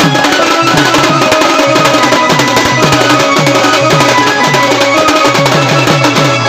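Instrumental passage of Odia folk music driven by a hand drum: a fast, dense rhythm whose low strokes drop in pitch, about three a second, with sharp clicking strokes on top and faint held notes underneath.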